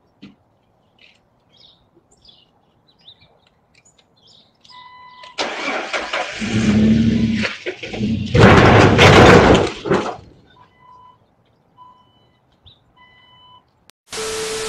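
A Jeep Wrangler's engine cranks and starts, loudest about eight to ten seconds in. Afterwards a short electronic beep repeats about four times. Near the end a burst of static hiss with a steady tone cuts in.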